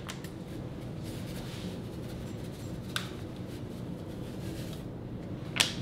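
Paper seasoning packet being opened and its dry seasoning shaken over a slow cooker, heard as soft rustling over a steady low hum. There is a small click about three seconds in and a sharper one near the end.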